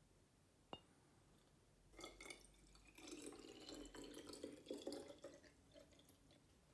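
A thin stream of water is poured from a plastic jug into a small glass flask, trickling and splashing, with a faint tone that rises slightly as the bottle fills. A single sharp click comes just under a second in, before the pour.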